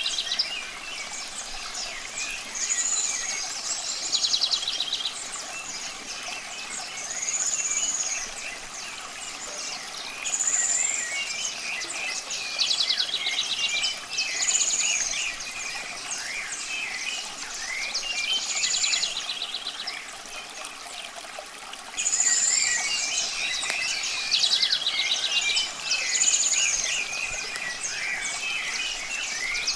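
Several songbirds singing, with short arched whistles and rapid trills repeating every few seconds amid many small chirps, over a steady hiss of running water. The sound becomes louder about two-thirds of the way through.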